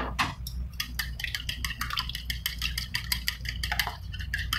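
Chopsticks beating raw eggs in a ceramic bowl: rapid, irregular clicking of the sticks against the bowl, over a low steady hum.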